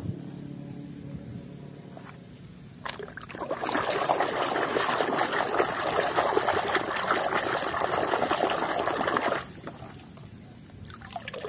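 Water splashing and sloshing in a plastic basin as a hand swishes through it, starting about three seconds in and lasting about six seconds before stopping abruptly.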